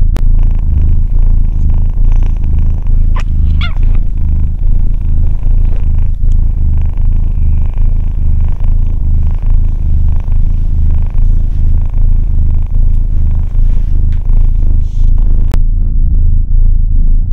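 Tabby kitten purring loudly and steadily, close up, with a brief high squeak a few seconds in.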